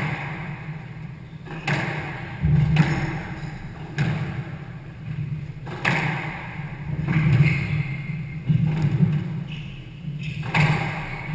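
Squash rally: the ball struck by rackets and hitting the court walls in sharp cracks about every one and a half to two seconds.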